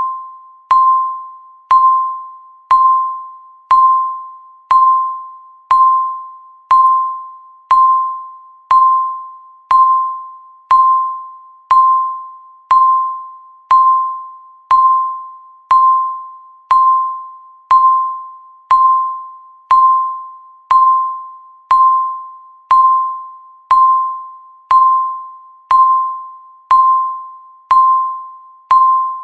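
Countdown timer beep sounding once a second, marking each second as the timer counts down. Each beep is a single mid-pitched tone that starts sharply and fades out before the next one.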